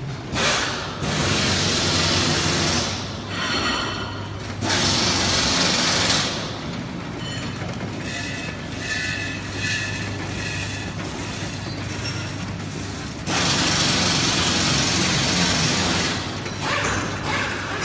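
Popcorn packing machine running: a steady low hum with three loud bursts of rushing noise, each one to three seconds long. Faint high tones come and go near the middle.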